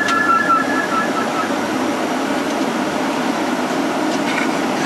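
Steady engine and propeller noise heard inside the cabin of a small propeller plane on the ground. A short two-pitch beeping pulses for about the first second and a half.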